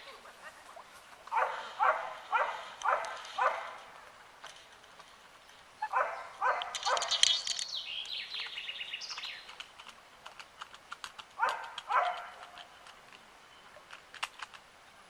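Short animal calls in runs of five, then four, then two, a few seconds apart, with faint scattered clicks between.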